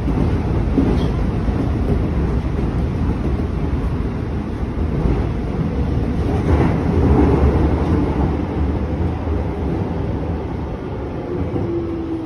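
Interior of a Chiba New Town Railway 9800-series train running through a subway tunnel: a steady low rumble of wheels and running gear. It eases off near the end as the train slows into the station, and a faint steady whine comes in.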